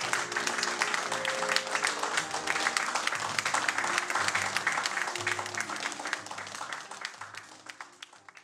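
Audience applauding, many close claps, over recorded music with steady bass notes; both fade out near the end.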